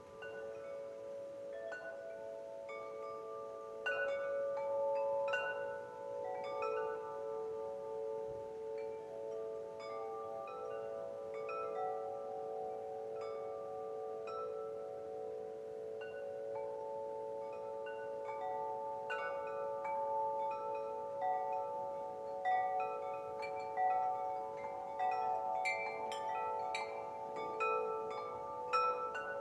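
Wind chimes ringing, several tones struck at irregular moments and left to ring on over one another. The strikes come thicker near the end.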